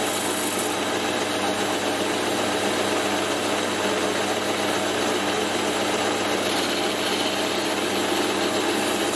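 Metal lathe running steadily: its motor and belt-driven spindle keep up an even hum over a constant hiss.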